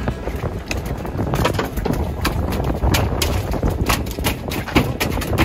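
Irregular slaps and knocks on a boat's diamond-plate metal deck, around a freshly landed fish lying there, over a steady low rumble of wind and boat.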